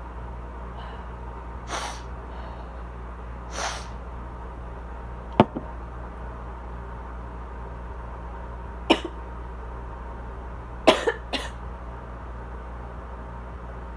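A woman's dry asthma cough: two softer, breathy coughs early on, then sharp single coughs a few seconds apart, ending with a quick pair, the loudest. A room air conditioner hums steadily underneath.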